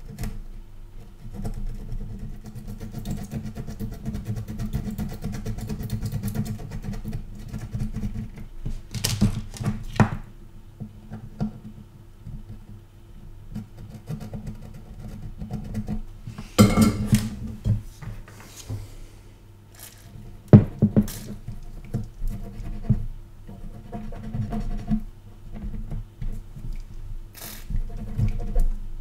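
Steady low hum with irregular scraping and handling noise and a few sharp clicks, from hand tools working corrosion off a circuit board.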